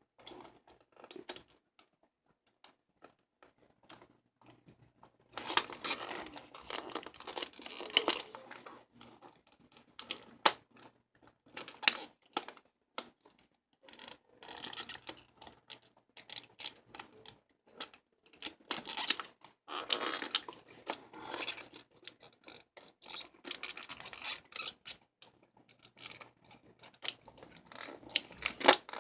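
Hands working at plastic mouse packaging to free the USB dongle: scraping and rustling with scattered sharp clicks, coming in irregular spells.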